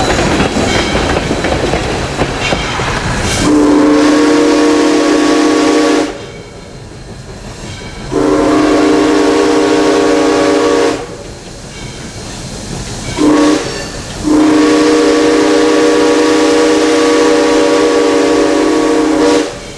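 Southern Railway 2-8-0 No. 630 steam locomotive running with a loud, even clatter and rush, then its steam whistle sounding four blasts, long, long, short, long: the grade-crossing signal.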